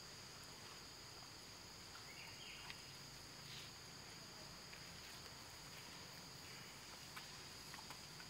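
Faint, steady, high-pitched drone of insects, with a few soft clicks scattered through it.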